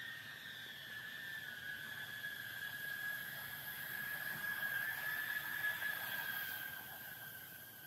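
A 3-inch cinewhoop FPV drone's motors and propellers whining in flight, a steady high whine that wavers a little in pitch. It grows louder toward five or six seconds in, then fades toward the end.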